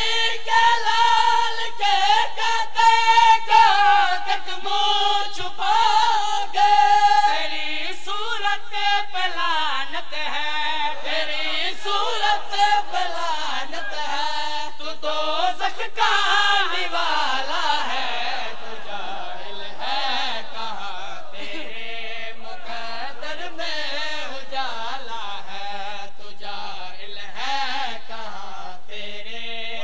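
A man's unaccompanied voice chanting a mourning recitation in long, wavering held notes, high for the first seven seconds or so, then in lower, winding phrases.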